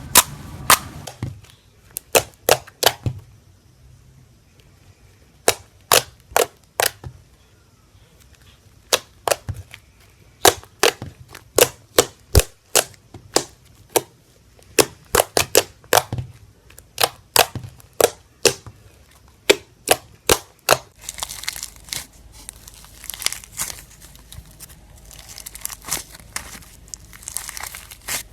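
Slime being squeezed and poked, giving sharp popping clicks in irregular clusters. From about 21 seconds in, the pops give way to a continuous crackling crinkle.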